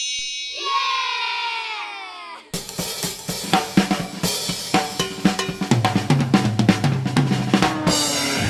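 A cartoon sound effect whose pitch slides down over about two seconds, followed by a short drum-kit jingle with snare, bass drum and hi-hat over a bass line, ending on a cymbal crash.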